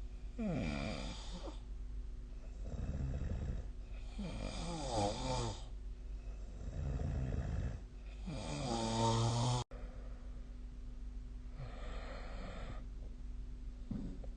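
A person snoring in sleep: three loud, pitched snores about four seconds apart, with quieter breaths between them. The third snore breaks off suddenly about ten seconds in, and softer breathing follows.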